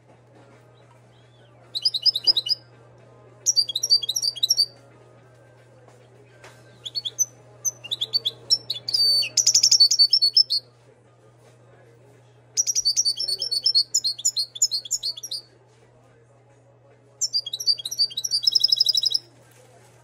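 A caged Moroccan goldfinch (European goldfinch) singing: six bursts of fast, high twittering and trilling separated by short pauses, the longest phrase lasting about three seconds.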